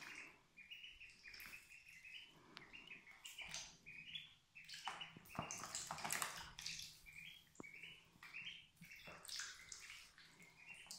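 Indian Runner and mallard ducklings peeping: a steady stream of short, high peeps, several a second. Water splashes and sloshes in a shallow plastic tub as they paddle and climb about in it, loudest about halfway through.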